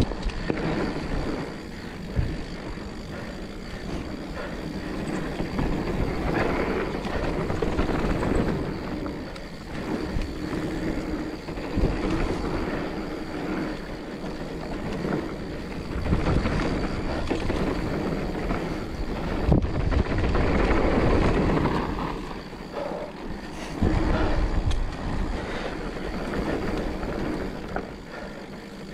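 Mountain bike descending a dirt flow trail: tyres rolling on dirt and wind on the microphone, swelling and easing with speed, with a few sharp knocks over bumps.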